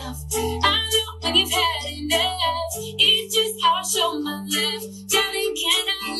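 A pop song with a sung vocal over a steady bass line, streamed by Bluetooth and played through a Konzert AR-902V+ amplifier and KSS-10MK2 3-way speakers with horn tweeters. The bass note shifts twice.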